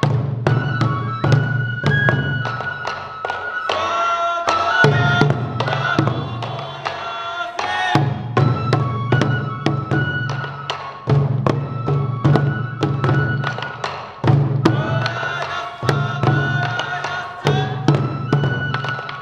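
Sansa odori folk music: many taiko drums struck in a steady, even rhythm, with bamboo flutes playing a sliding melody above them.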